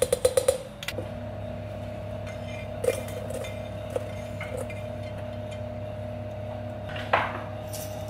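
A metal spoon tapping several times in quick succession against a stainless steel mixing bowl, followed by a few scattered light clinks and a brief scrape of food being pushed off a plate into the bowl. A steady hum comes in about a second in and runs underneath.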